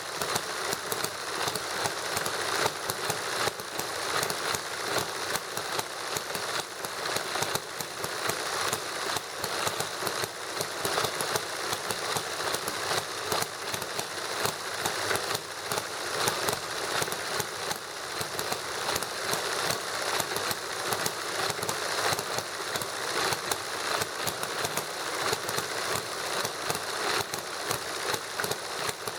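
Two model kit engines running together, a small hit-and-miss gasoline engine and a Stirling engine, with a fast, steady clatter of knocks and ticks.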